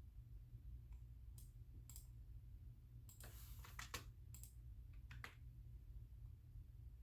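Faint, scattered clicks of computer keys and a mouse, with a quick run of several keystrokes a little past halfway. A steady low hum sits underneath.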